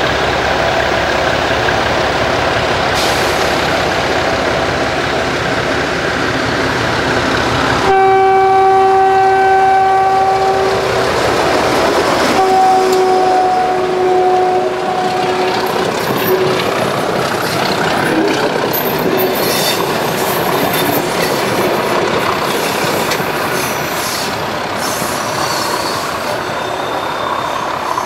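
MaK V65 diesel locomotive running as it approaches with a train, then sounding two long horn blasts, the first about eight seconds in and the second, sliding slightly lower in pitch, as it passes. After that the coaches rumble and clatter by on the track and slowly fade.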